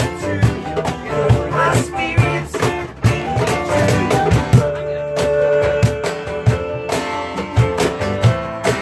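Live band music: a guitar strummed in a steady rhythm with bass notes underneath, and singing.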